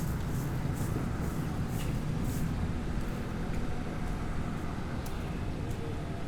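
City street traffic: a steady low rumble of vehicles passing on the road.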